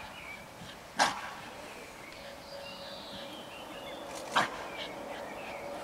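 A dog barking: two single sharp barks, one about a second in and another about three seconds later.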